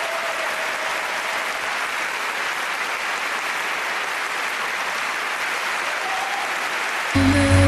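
Large auditorium audience applauding steadily. Music comes in near the end.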